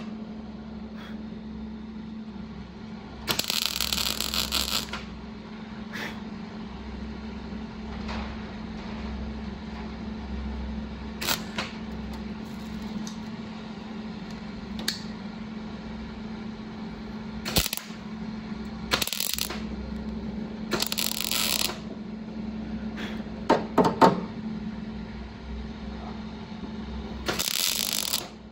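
Short bursts of hiss, four times, each about a second long, over a steady hum, with a few sharp metallic clinks in between.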